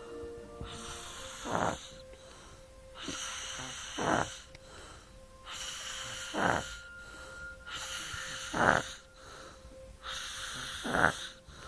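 Snoring from someone deeply asleep: five loud, rough snores at an even pace, about one every two and a half seconds, with a breathy hiss of air between them.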